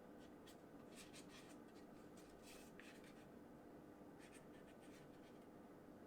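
Near silence: faint rustling and light scraping of the box contents being handled, a dozen or so brief soft scratches over a low steady hum.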